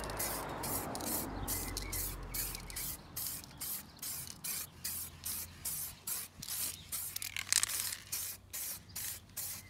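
Aerosol spray can of clear varnish spraying in short repeated bursts, about two to three hisses a second, as the clear coat is laid on a wheel rim.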